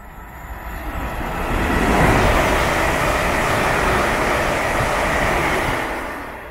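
London Northwestern Railway Class 350 electric multiple unit, three coupled units, passing at speed on the fast line. A steady rush of wheel and air noise builds over the first two seconds, holds, then fades away near the end.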